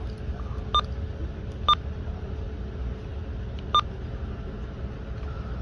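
Three short electronic beeps, the second the loudest, over a steady low rumble.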